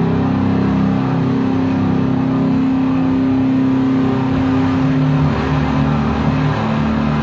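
Heavily distorted electric guitar drone through a PA, a loud wall of sustained noisy tone with feedback. A held note gives way, about two-thirds of the way in, to a lower note that pulses.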